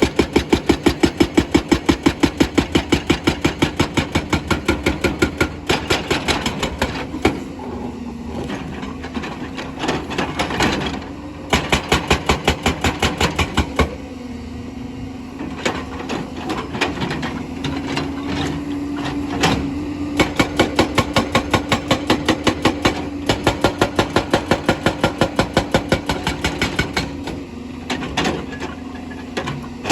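Excavator's hydraulic rock breaker hammering stone in runs of rapid, evenly spaced blows, several a second, with pauses between runs. The excavator's diesel engine runs steadily underneath.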